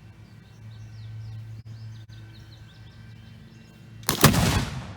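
Birds chirping faintly, then about four seconds in a single loud shot from a black-powder mountain rifle that dies away over about half a second.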